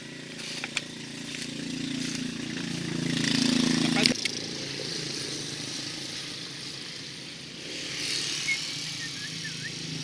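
A small engine humming steadily, growing louder, then cut off abruptly about four seconds in, followed by rustling and handling noise with a few light knocks.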